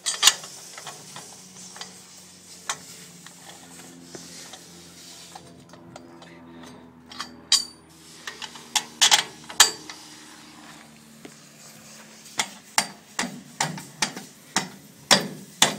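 Steel bolt and square steel tubing of a hinged stabilizer leg clanking and clinking as the leg is unpinned, swung down and bolted in place. Sharp metal knocks come singly at first, then in quick runs through the second half.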